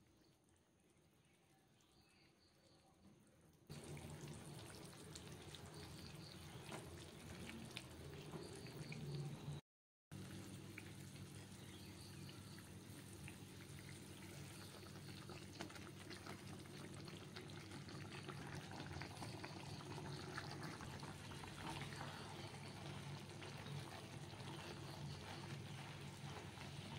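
Water simmering in a frying pan, a steady low hum under it with small clicks and crackles. It starts suddenly a few seconds in and cuts out briefly near the middle. Semolina is later poured in and stirred with a spatula.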